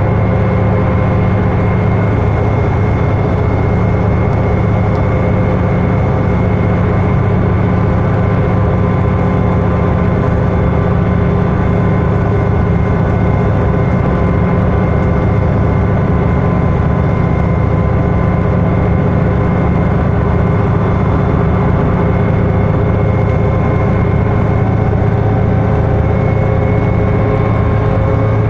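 Inside a 2011 New Flyer D60LFR articulated bus at freeway speed: its Cummins ISL9 diesel and Allison B500R automatic transmission run with a steady drone and a few steady whining tones over road and tyre noise.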